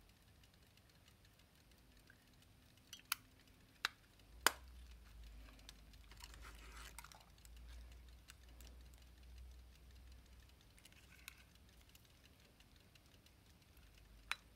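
Sharp metallic clicks of pocket watch case covers being snapped shut and opened, four in quick succession about three to four and a half seconds in, then single clicks later and near the end, with faint handling rustle between.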